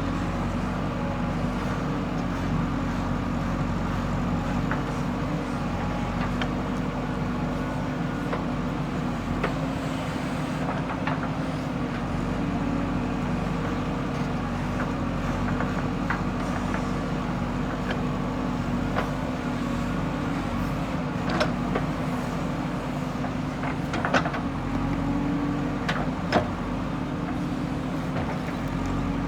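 JCB 3DX backhoe loader's diesel engine running at a steady speed, with a few sharp metallic knocks scattered through.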